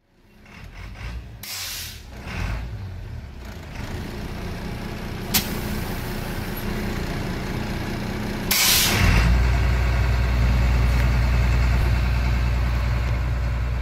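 Bus engine running and growing louder, with two loud air-brake hisses, one about a second and a half in and one near nine seconds in, and a single click near five seconds in. After the second hiss the engine settles into a loud steady low drone.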